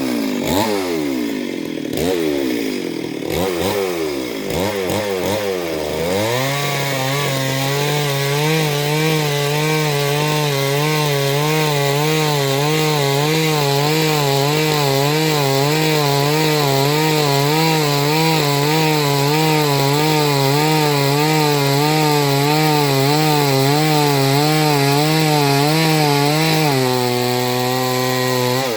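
Chainsaw revving up and down several times, then held at full speed with a steady, slightly wavering pitch as it cuts into the trunk of a Gamhar tree. About two seconds before the end the pitch drops briefly, then climbs again.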